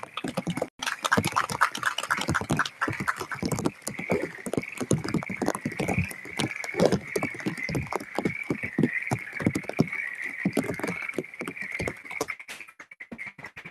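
A steady chorus of frogs calling, over dense, irregular pattering from rain falling throughout. The sound cuts out briefly just under a second in.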